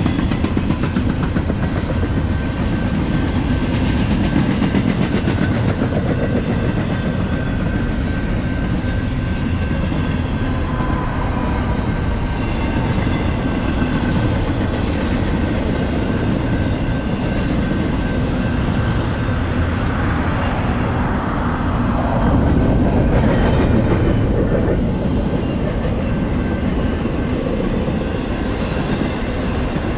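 Long intermodal freight train rolling past, its double-stack container cars and trailer-carrying flatcars clattering steadily over the rails. The noise swells for a few seconds about two-thirds of the way through.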